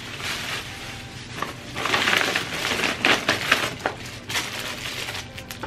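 Gift wrapping rustling and crinkling as a present is unwrapped by hand, with many small crackles, busiest around the middle.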